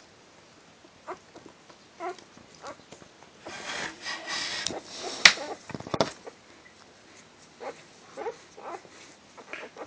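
Four-day-old border collie puppies giving short squeaks and whimpers now and then. About halfway through there is a stretch of rustling with one sharp click, the loudest sound.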